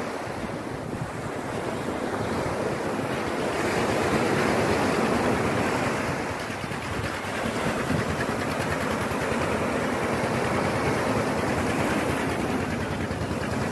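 Small sea waves breaking and washing up a sandy beach: a steady surf hiss that swells about four seconds in and eases a couple of seconds later.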